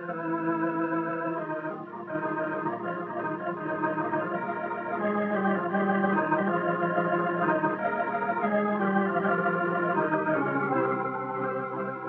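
Background film-score music of slow, sustained organ-like chords that change every couple of seconds, with a brief dip about two seconds in.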